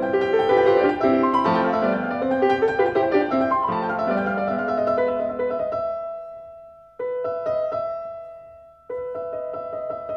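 Background piano music: a flowing run of notes, then a slower passage where two held chords are struck about two seconds apart and each fades away.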